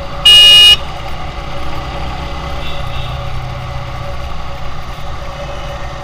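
A short, loud horn blast lasting about half a second, a moment after the start, over a motorcycle engine running steadily with road and wind noise.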